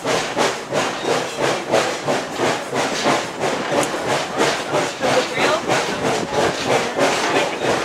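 Steam locomotive under way, its exhaust chuffing in a steady rhythm of about three beats a second.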